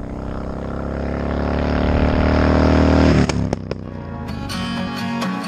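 A motorcycle's V-twin engine, on a 2007 Kawasaki Vulcan Mean Streak 1600, approaching along the road and growing steadily louder, then passing close about three seconds in, where its sound drops off sharply. Music starts about a second later.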